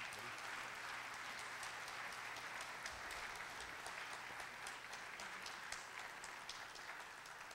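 Audience applauding: a steady patter of many hands clapping that begins to die down near the end.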